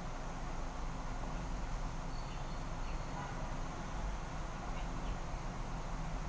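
Steady low hum and hiss of background noise, with a few faint, short high chirps.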